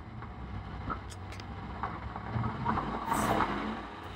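Stock car's V8 engine running steadily at low speed.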